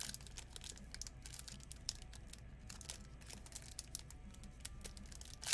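Foil wrapper of a trading-card pack crinkling as it is handled and peeled open by hand: a faint, irregular run of small crackles and clicks.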